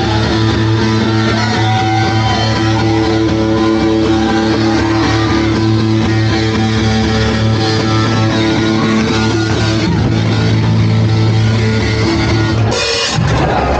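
A rock band playing live and loud, the guitar holding long sustained chords that change every few seconds. The music stops abruptly near the end.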